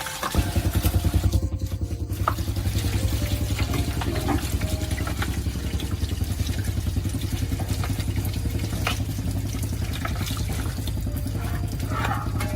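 A motor or small engine starts about half a second in and runs steadily with a rapid low throb.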